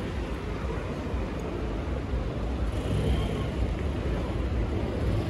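Steady low rumble of outdoor city ambience with vehicle noise, growing a little louder about two seconds in.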